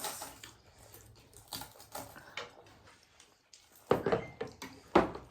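Eating sounds: scattered soft clicks and smacks of chewing and handling food on plates, with a couple of louder sharp knocks or smacks about four and five seconds in.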